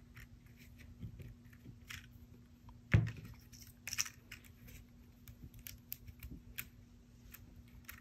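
Faint handling noises of paper die cuts being pressed together on a craft sheet: light rustles and small ticks and taps, with one sharper knock about three seconds in.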